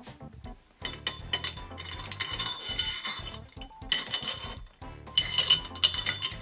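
Loose metal hardware and mill parts clinking and rattling as they are handled, in three bursts of ringing clatter with short pauses between.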